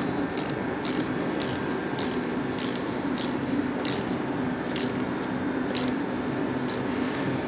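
Screwdriver turning the screw of a hose clamp to tighten it on a new intercooler hose: short scraping clicks, roughly two a second, over a steady low hum.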